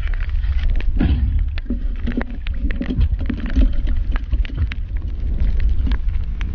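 Underwater sound heard through a camera housing on a night dive: a constant low rumble of moving water with many scattered sharp clicks and crackles.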